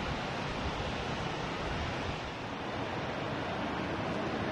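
Steady rushing noise with no distinct event standing out.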